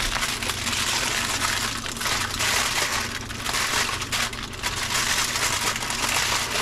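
Aluminium foil crinkling and crumpling continuously as it is folded by hand around a fish, over a steady low hum.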